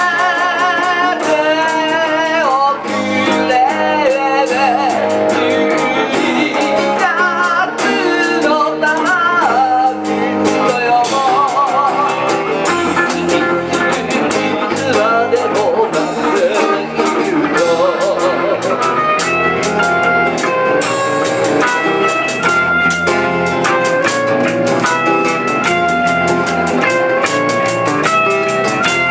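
Live band music: a man sings with vibrato over strummed acoustic guitar, electric bass and electric guitar, with drums keeping a steady beat. In the second half the voice gives way to an instrumental melody of held notes.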